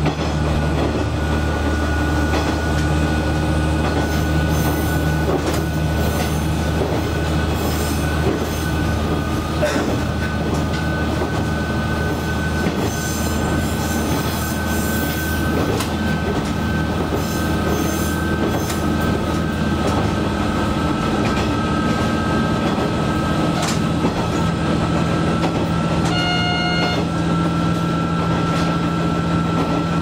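Diesel railcar running along single track: a steady engine hum under a high, steady whine, with scattered clicks from the wheels over the rails. A brief pitched tone sounds near the end.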